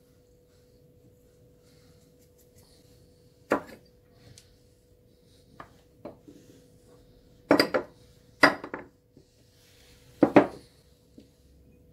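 Kitchen clatter of spice containers and a pepper shaker being handled over a stainless steel pot: a handful of sharp knocks and clinks a second or two apart, loudest in the second half.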